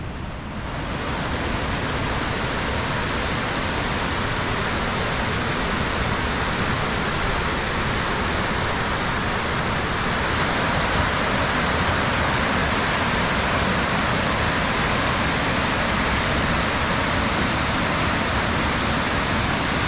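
Steady rushing of water falling down a multi-tiered cascading waterfall. It swells over the first second or two, then holds steady.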